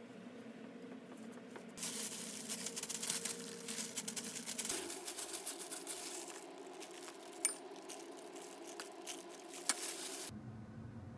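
Thin disposable plastic gloves crinkling and rustling as soft mashed-potato dough is squeezed and pressed into patties by hand, with a couple of sharp clicks near the end.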